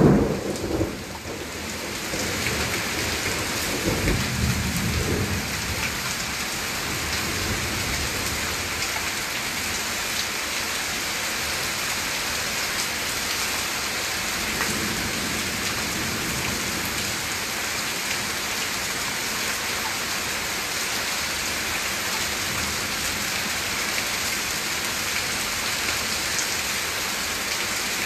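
Heavy rain pouring steadily during a storm. A loud low rumble sounds right at the start and fades within about a second, and another comes about four seconds in.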